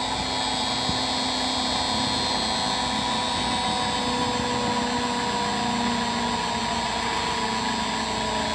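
CNC engraving machine's spindle running, its bit engraving a wooden board: a steady mechanical whine with several fixed tones over the cutting noise.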